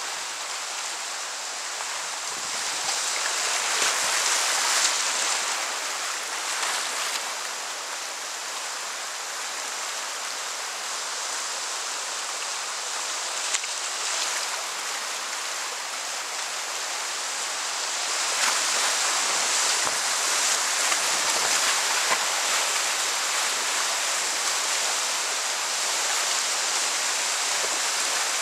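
Whitewater of a river rapid rushing around a kayak, with occasional splashes from paddle strokes. The rush swells louder a few seconds in and again from about two-thirds of the way through.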